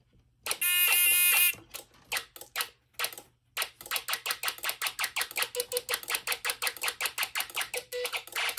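Snap Circuits fire alarm circuit sounding in drill mode: a buzzer tone of about a second with a slight warble, then a fast, even run of clicks at about five to six a second.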